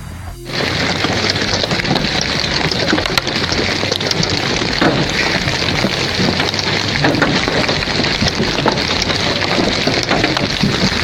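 Hailstorm: hailstones pelting down in a dense, steady clatter of many small impacts, starting abruptly about half a second in.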